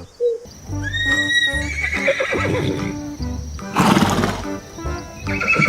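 A horse neighing over background music with a steady beat.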